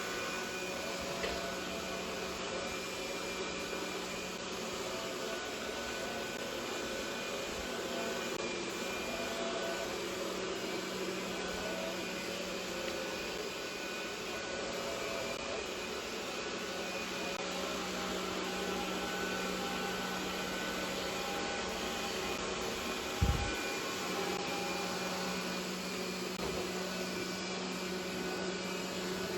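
Roborock E5 robot vacuum cleaner running: a steady motor whir with a constant low hum. There is a single low thump late on.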